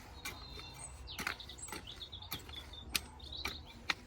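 Irregular sharp clicks and scrapes of a hoe chopping weeds and pulling soil in a potato row, a few strikes louder than the rest. Short bird chirps come twice.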